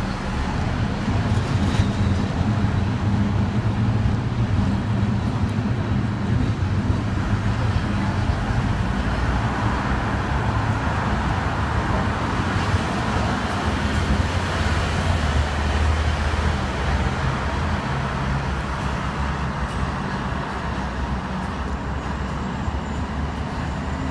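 Hong Kong double-decker electric tram running along its street track, heard from on board: a steady rumble of wheels on rail and running gear, with road traffic around it.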